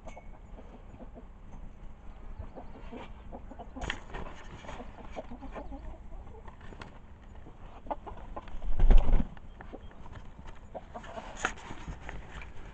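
Domestic hens clucking around freshly spread feed, with scattered small clicks and rustles. A brief loud thump about nine seconds in is the loudest sound.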